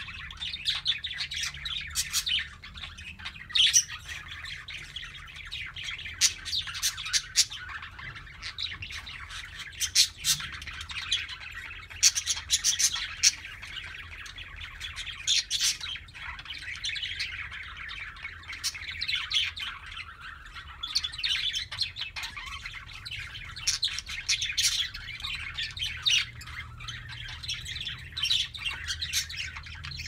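A flock of budgerigars chattering and warbling without pause, with sharp chirps and squawks breaking out every second or so.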